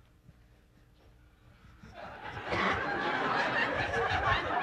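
About two seconds of near silence, then a comedy-club audience breaks into laughter that swells and holds.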